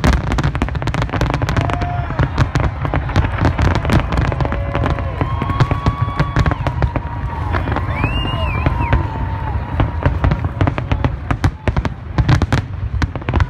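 Fireworks display: aerial shells and bridge-mounted fireworks going off in rapid succession, a dense, continuous run of bangs and crackles over a low rumble.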